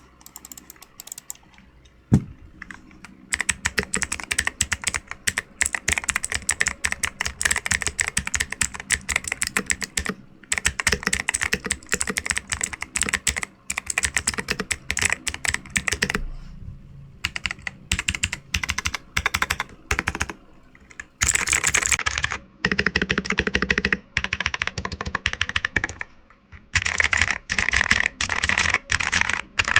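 Mechanical keyboard with clicky blue switches being typed on fast, in runs of rapid key clicks with short pauses between them. The clicky switches are noisy.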